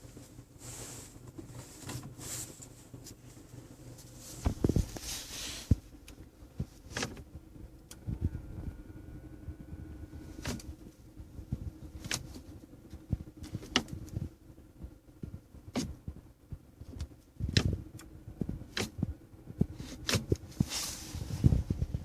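Inside a car cabin: a faint steady hum with a dozen or so scattered sharp clicks and knocks and two brief rustling patches, one about five seconds in and one near the end.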